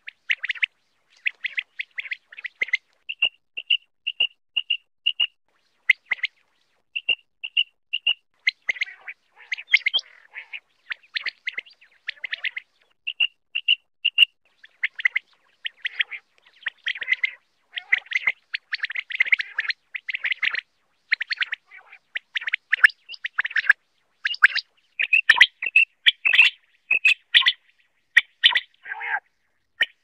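Common quail calling: short, sharp high notes repeated throughout, some in evenly spaced runs of about two a second, others packed into dense clusters.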